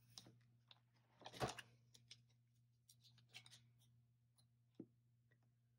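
Faint handling sounds of small sticker labels being peeled and pressed onto plastic tab dividers: a few soft clicks and rustles, the loudest about a second and a half in.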